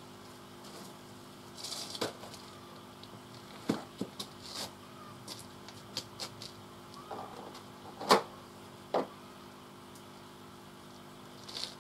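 Scattered light clicks and knocks of things being handled, about eight in all, the loudest about eight seconds in, over a faint steady hum.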